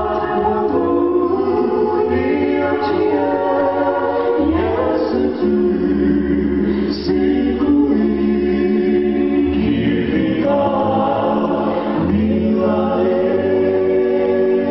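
Male a cappella group singing a Swahili gospel song, several voices holding chords in harmony over a low bass line, with no instruments.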